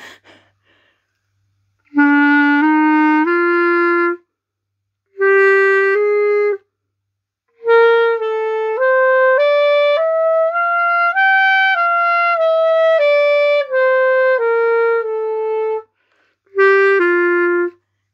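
Backun Beta wooden clarinet played over the break: a few low held notes, then a scale stepping up into the upper register and back down, then two closing notes. The tone is clear and even across the change of register, which the player finds easier on this instrument.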